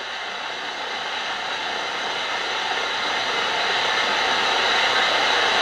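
Steady static hiss from a spirit box, slowly growing louder.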